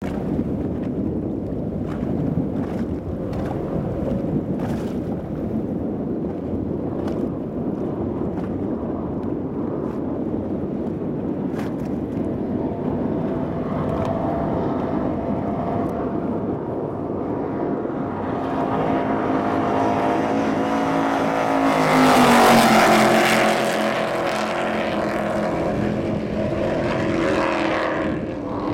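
Twin Mercury Racing 900SC supercharged V8s of a 42-foot MTI catamaran making a flyby at about 115 mph. The first stretch is a low, noisy rumble. The engine note then builds to a loud peak about 22 seconds in, its pitch dropping sharply as the boat passes, and the lower note carries on as it moves away.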